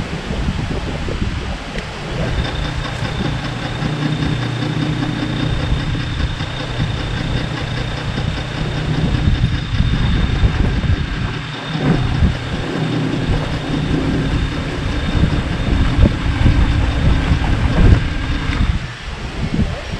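A drum-style chicken plucker's electric motor starts about two seconds in, runs steadily with a hum while it spins a scalded chicken to strip its feathers, and cuts off near the end.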